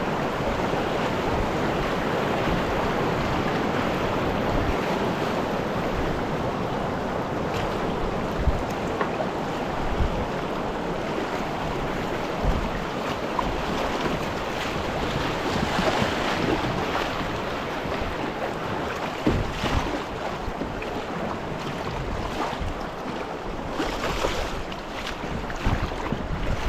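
Rushing river water with wind buffeting the microphone, and a few scattered knocks.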